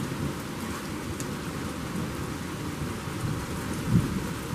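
Heavy rain pouring steadily outside an open window, with low thunder rumbling beneath it. A short, loud low thump about four seconds in.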